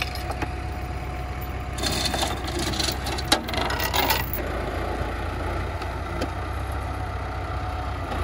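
Case tractor's diesel engine running steadily at low revs, with a stretch of scraping and rattling from about two to four seconds in that includes one sharp clank.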